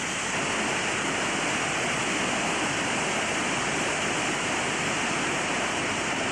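Steady rushing of flowing floodwater: an even, loud hiss-like noise with no breaks or separate events.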